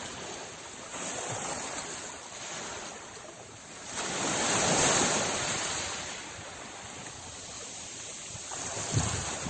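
Sea waves washing in on the shore: a steady rush of surf that swells into one larger wave about four seconds in and then ebbs.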